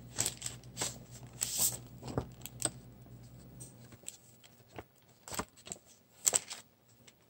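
Packaged craft stencils being handled on a table: scattered rustles, crinkles and light taps of plastic and paper. A faint low hum underneath stops a little over halfway through.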